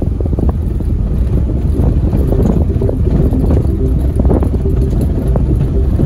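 A vehicle driving on a rough road: steady engine and road rumble with wind buffeting the microphone.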